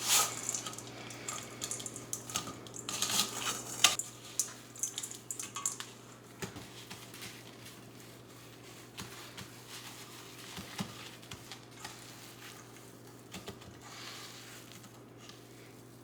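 Hands kneading crushed Oreo crumbs into softened cream cheese in a bowl: a stream of soft squishing, sticky clicks and light knocks against the bowl, busier in the first few seconds and fainter after.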